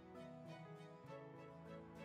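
Quiet background music: a run of distinct notes over held chords, with a new note about twice a second.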